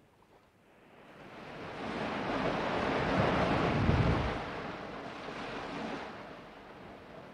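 Sea surf: a wave breaking against a rock cliff, swelling for a couple of seconds to a low crash about four seconds in, then washing back and fading.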